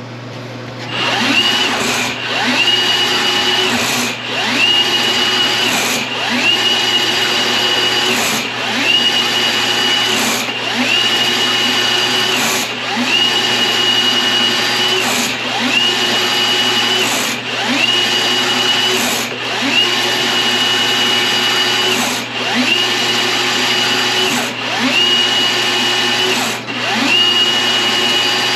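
Cordless sectional drain machine (Milwaukee M18 with 7/8" cable) running a cable into a clogged main sewer line. The motor spins up, runs about a second and a half, dips briefly and spins up again, repeating about every two seconds.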